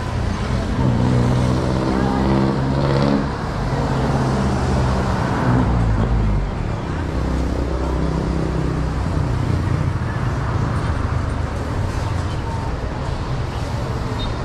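Street traffic: a motor vehicle's engine runs close by for the first several seconds, its pitch stepping up and down, over a steady rumble of passing road traffic.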